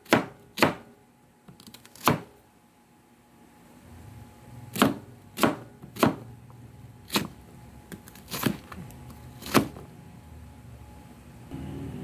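Kitchen knife slicing through an onion and striking the cutting board in sharp single knocks, about nine of them at an uneven pace, with a pause of a couple of seconds after the first three. A faint low hum comes in about a third of the way through.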